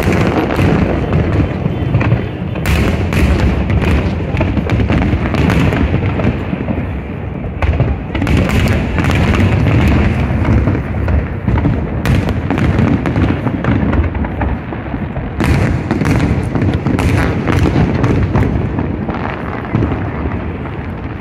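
Fireworks display with many aerial shells bursting in quick succession: a continuous low rumble of booms with sharp cracks and crackling over it.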